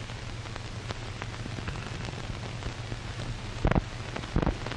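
Surface noise of an old optical film soundtrack with no program sound: a steady hiss and crackle over a low hum, with scattered clicks, then two louder thumps near the end.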